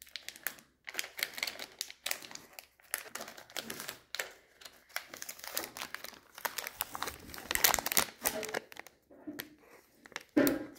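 Chocolate bar wrapper being torn open and unfolded by hand: irregular crinkling and rustling of the paper sleeve and inner wrapper, busiest about eight seconds in.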